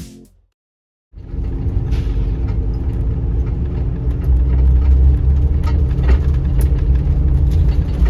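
Steady low rumble of a motor vehicle, with a constant engine hum and a few light clicks over it. It starts about a second in, after a brief silence.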